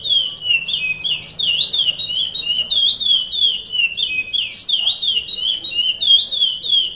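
Curió (chestnut-bellied seed finch) singing the Paracambi 'rompe-nuvem' song type. It is a fast, unbroken run of high, clear whistled notes, each sweeping down and back up, repeating without pause.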